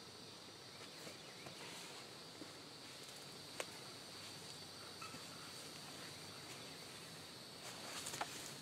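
Faint steady drone of insects in the woods, with a single sharp click about three and a half seconds in. Near the end comes a brief crackling rustle of tarp and brush as someone climbs out of the tarp shelter.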